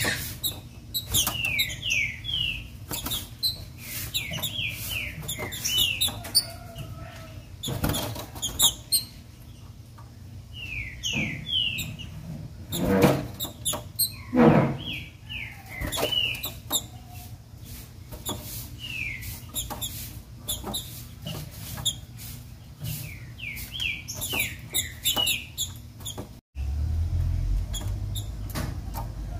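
Female green-winged saltator (trinca-ferro) calling: short falling notes given in quick runs of three to six, again and again. Sharp clicks and two louder thuds come from the bird moving about its cage.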